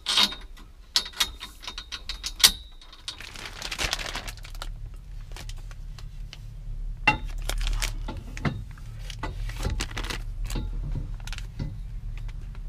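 Hand tools and small metal parts clicking and clinking during hand work on a roll cage, with sharp ringing clinks in the first couple of seconds, a rustle about three and a half seconds in, then scattered clicks over a low handling rumble.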